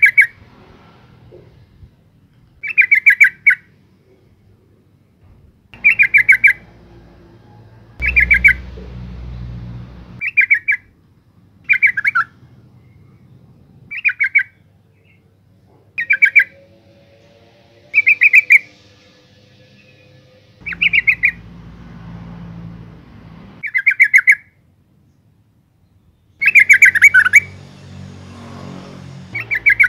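Yellow-vented bulbul (female) giving short, loud chattering calls, each a quick run of notes, repeated about every two seconds throughout.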